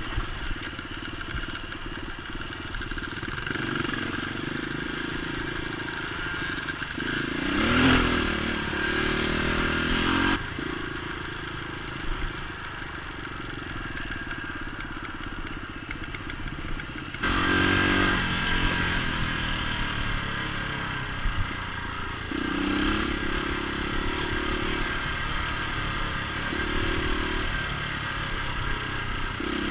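Dirt bike engine running as it is ridden along a rough dirt trail, the note rising and falling with the throttle. A sharp rev climbs around eight seconds in, and the engine is louder from about seventeen seconds.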